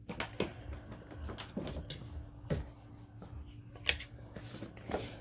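Scattered plastic clicks and knocks from handling a Bissell vacuum cleaner's filter and dirt container, about half a dozen separate knocks over a few seconds. The vacuum motor is off.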